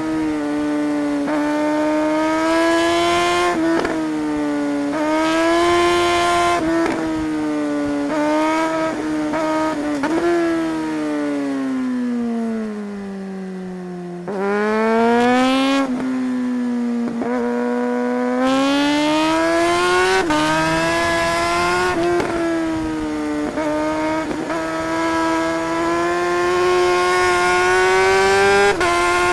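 Suzuki GSR 600 K8's inline-four engine under way, revs rising under throttle and dropping sharply at each gear change. About ten seconds in, the revs fall slowly for several seconds as the bike slows, then jump up again near the middle and climb.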